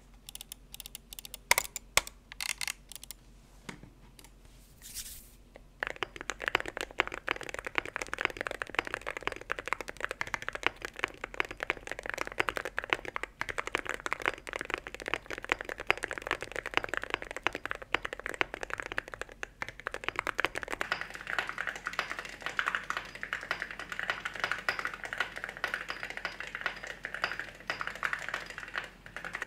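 Typing on a KBDFans Margo custom mechanical keyboard fitted with pre-lubed Gateron Oil King linear switches and Cerakey ceramic keycaps. A few separate key presses come first, then fast, continuous typing from about six seconds in.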